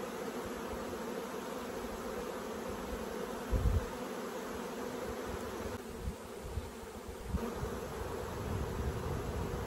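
Honeybees buzzing over an opened hive as frames are pulled, a steady hum throughout. A brief low thump comes about three and a half seconds in.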